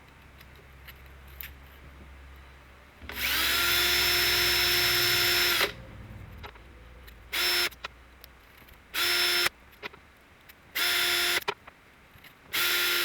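Electric drill spinning up and running steadily for about three seconds, then switched on in four short bursts of under a second each.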